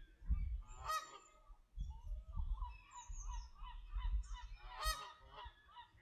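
Canada geese calling: two loud honks, about a second in and near the end, with a run of short, softer honks between them. Low rumbling bursts run underneath.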